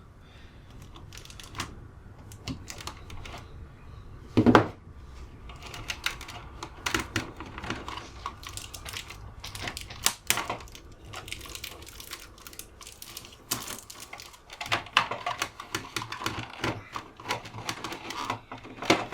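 Irregular small clicks, taps and knocks of hands working on an opened UPS and its 12-volt lead-acid battery just after the terminal leads are pulled off, with one louder thump about four and a half seconds in.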